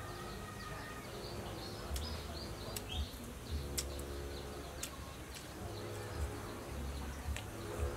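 Close eating sounds: crispy fried chicken legs being torn apart by hand and chewed, with scattered sharp crackles and dull mouth thuds. Birds chirp in the background.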